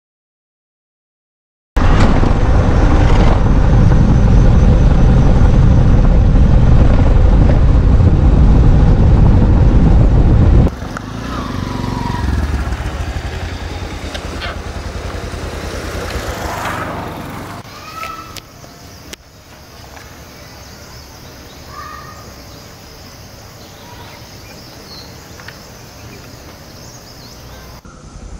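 Silence for almost two seconds, then a motorcycle riding with heavy wind noise rumbling on the microphone for about nine seconds. After that the sound drops to a quieter outdoor background with a few short bird chirps.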